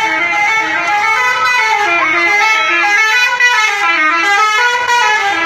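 A bus's 'telolet' horn, a set of multi-tone musical horns, playing a tune, its notes stepping up and down in quick succession.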